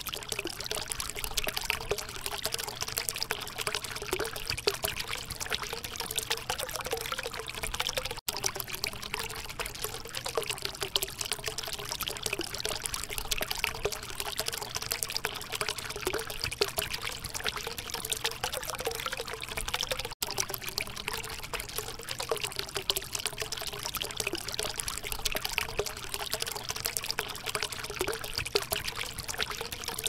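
Water trickling and splashing steadily from the branch tips of a cement tree-shaped tabletop fountain into its water-filled basin, cutting out for an instant twice.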